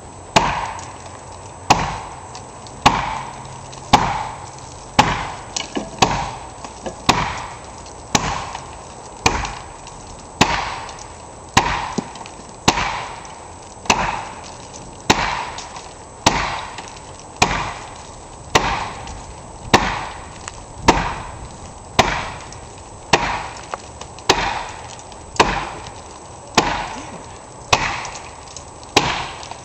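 Wooden framing of a small shed-sized house struck again and again with a heavy tool, a steady run of sharp wooden blows about one a second, as the frame is knocked apart.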